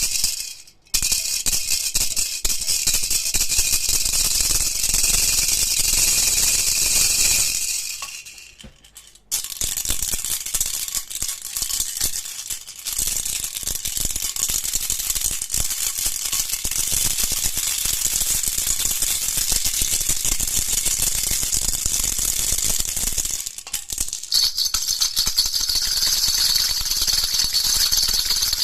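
A baby rattle shaken continuously, giving a dense, fast rattling of small beads. It pauses briefly about 8 seconds in and again about 23 seconds in, and each time it resumes with a somewhat different, brighter rattle.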